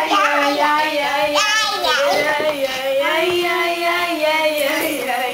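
Children singing a tune together without clear words, with one note held for over a second about three seconds in.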